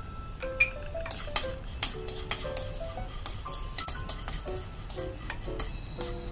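Metal spatula scraping and clinking against a kadai as chopped almonds are stirred and roasted, in many quick irregular strokes. A light melody of background music plays under it.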